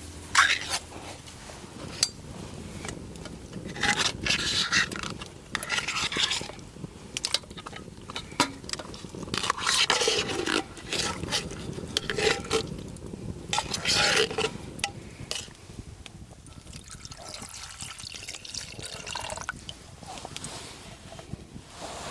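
Cooking sounds: liquid being poured and stirred, with a utensil scraping in a pan, in a series of short spells.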